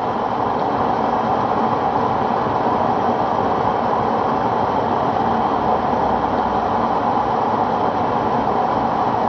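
Homemade flex-fuel stove burner running at full power: a steady, even rushing noise of the flame, with no change in level.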